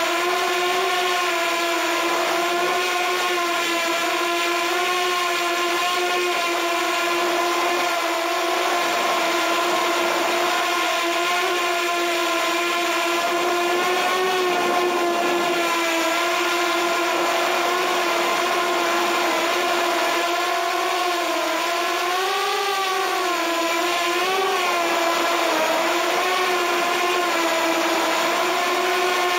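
Walkera F210 3D racing quadcopter's brushless motors and propellers whining steadily in flight, heard from a camera mounted on the quad. The pitch wavers up and down with throttle, most clearly in the last third.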